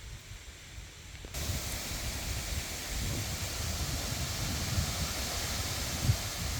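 Wind rushing, with low rumbling gusts on the microphone; the hiss jumps abruptly louder about a second in.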